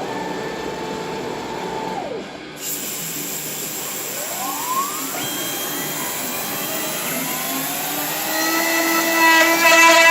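Self-built CNC router at work: motors whine and slide up and down in pitch as the axes move. A high hiss comes in abruptly about two and a half seconds in, and a steady whine builds louder near the end.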